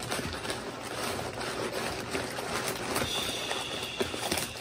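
Crumpled packing paper rustling and crinkling, with the cardboard flaps of the box scraping, as the box is unpacked by hand.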